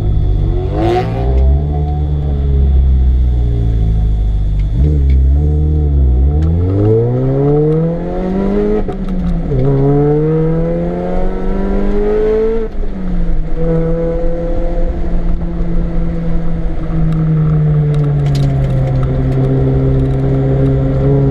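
Supercharged Mini Cooper S R53's 1.6-litre four-cylinder engine on a hot lap: the revs fall away at first, then climb hard with two quick upshifts, about nine and thirteen seconds in, before running fairly steady in a higher gear.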